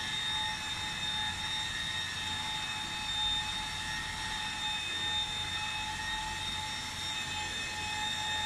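A machine's electric motor running steadily with a constant high whine.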